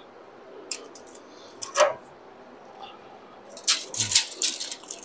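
Steel tape measure handled against a car's frame rail: scattered clicks early on, then a quick run of clicks and rattles with a soft knock about four seconds in as the tape is shifted.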